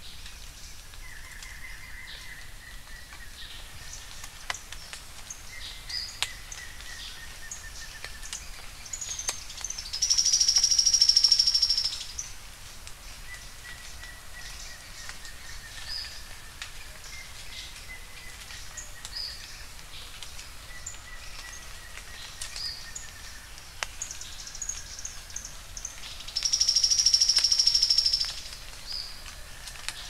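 Sharp-billed treehunter singing: two high, thin trills of about two seconds each, roughly sixteen seconds apart, with short high call notes scattered between them. Faint, long, slightly falling whistles sound in the background.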